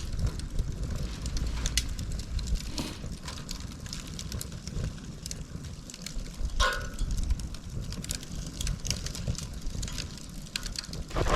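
Split dry bamboo bundle burning as a Swedish torch, crackling with scattered sharp pops, one louder crack a little past halfway. Wind rumbles on the microphone underneath.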